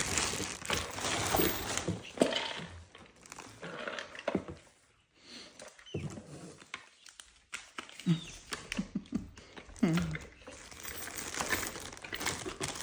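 Clear plastic wrapping crinkling and rustling as monkeys handle opened parcels, with a lull partway through. A few short, low voice-like sounds come in the later part.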